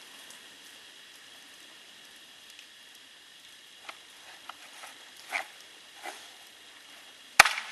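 Tool-less chain tensioner of a Stihl MS 211 C-BE chainsaw being worked by hand, wing nut and tensioning wheel: a few soft scrapes and clicks, then one sharp click near the end.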